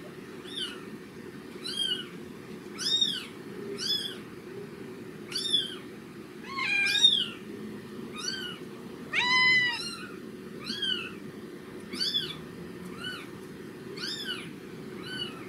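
A newborn kitten squeaking over and over in short, high-pitched mews, about one or two a second, played back through computer speakers. One longer, lower, steady call comes about nine seconds in.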